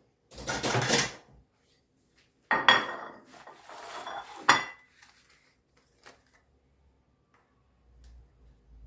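Metal pots, pans and utensils clattering: first a short rattle, then a louder clatter with a brief metallic ring, ending in a sharp clack, with only faint ticks after that.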